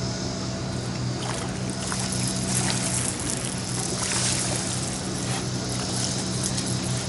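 A hooked catfish being reeled to the boat on a fishing rod: the reel cranking, with water splashing and sloshing at the surface from about a second in, over a steady low hum.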